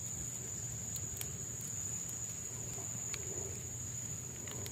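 A steady high-pitched insect drone, from crickets or cicadas in the riverside vegetation, holding one unbroken note, with a few faint clicks over it.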